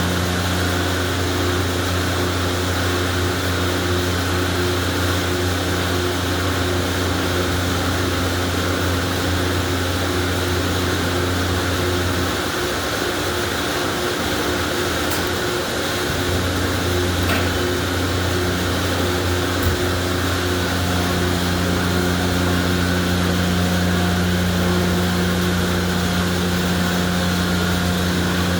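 Car wash pump machinery running: a steady low motor hum over a broad hiss. The low hum drops away for a few seconds about halfway through, then comes back.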